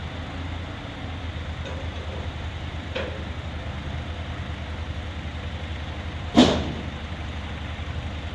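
Propane forklift engine running steadily with a low, pulsing hum. A light knock comes about three seconds in, and a single loud bang about six and a half seconds in.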